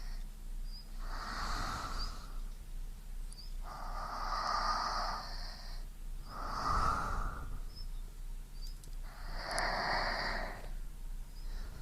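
A person breathing slowly and audibly close to a binaural microphone: four long breaths, each one to two seconds, with pauses between them and a few faint small clicks in the gaps.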